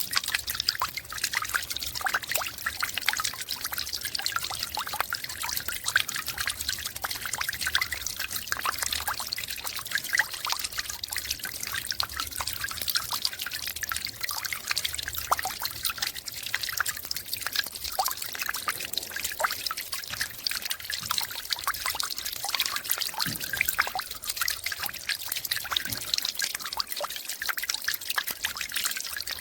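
Water from melting snow trickling and dripping: a steady, dense patter of small drops and running water that keeps up without a break.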